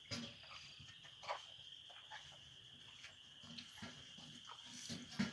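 Steady high-pitched insect trilling with a few soft knocks scattered through, and brief low sounds near the end.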